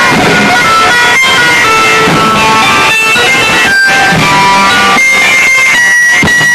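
Loud bambouti wedding music led by a plucked-string melody of short, shifting notes, with occasional sharp percussive strokes.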